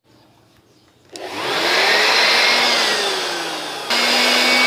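Electric dust blower switched on about a second in: its motor whine rises as it spins up over a rush of air, then it runs steadily, jumping louder near the end.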